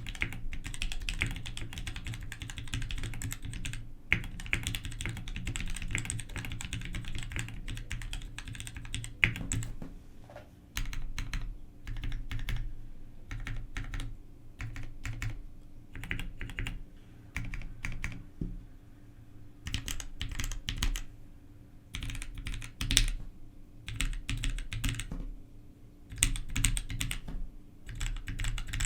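Typing on an EVE Mira SE mechanical keyboard with Gateron REVO Pink switches lubed with Krytox 105 and 205 and DCS-profile keycaps. The keys clack in a fast, continuous run for about the first ten seconds, then in shorter bursts with brief pauses.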